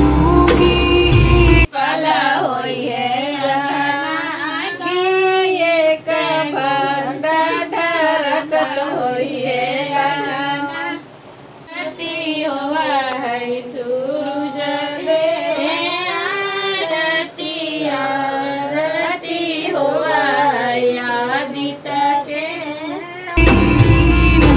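Women singing a Chhath devotional folk song without accompaniment, the melody wavering and gliding, with a short dip about eleven seconds in. Fuller background music plays briefly at the start and comes back near the end.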